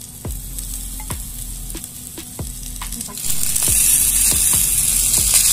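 Skewered chicken-breast kebab sizzling on hot, oiled stones, with scattered small pops. About three seconds in, the sizzling turns suddenly much louder and hissier.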